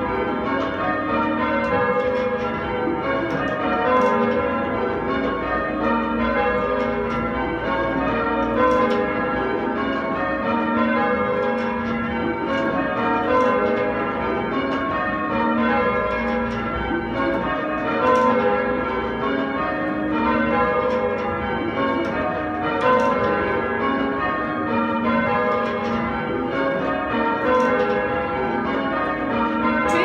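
A ring of eight Taylor tower bells, cast in 1898 and 1901, rung full circle by ropes in change ringing. The strokes follow one another in an even, unbroken stream of overlapping ringing tones.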